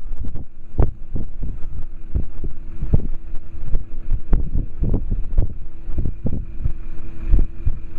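Wind buffeting the microphone in irregular low thumps and rumbles, over a steady low hum.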